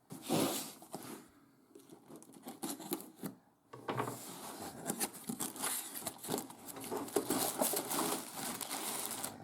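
Plastic packaging crinkling and tearing with many small rattling clicks, as of a building-brick set's bags being opened and handled.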